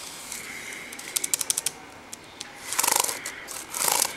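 Keys on a Compaq Presario CQ40 laptop keyboard clicking: a quick run of taps about a second in, then two dense rattling bursts of rapid key presses, near the middle and near the end.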